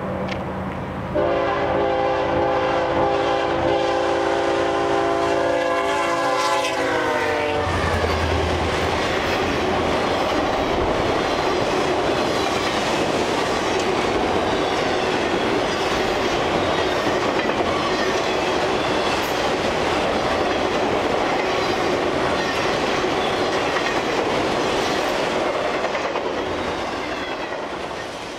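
Diesel locomotive's multi-note air horn sounding a long held chord that drops in pitch as the engine passes, given as a horn show. A long train of empty-sounding autorack freight cars then rolls by with a steady rumble and clickety-clack of the wheels, fading away near the end.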